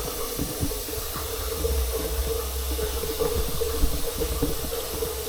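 Faucet running steadily into a sink and draining through a newly replaced pop-up drain, as a leak test of the new drain. A steady rush of water with a constant hum under it and a few faint knocks.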